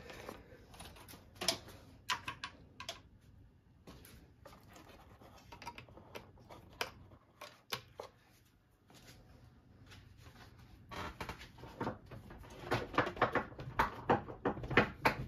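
Scattered clicks, taps and light scraping of hands handling circuit boards and their connectors in a small ISA backplane, with a quicker run of clicks near the end.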